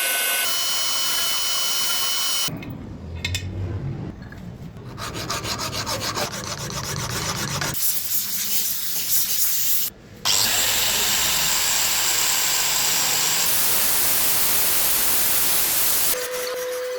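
Lathe machining of stainless steel and brass stock, heard as a run of short edited clips. The sound changes abruptly every two to three seconds, from scraping and filing-like noise to stretches with a steady high whine.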